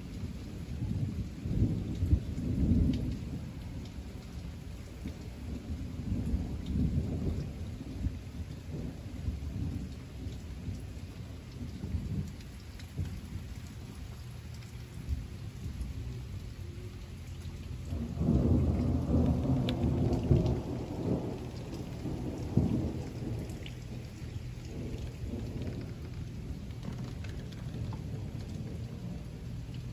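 Thunder rumbling over steady rain. Several low rolls come and go, the loudest and longest one starting about 18 seconds in and lasting several seconds.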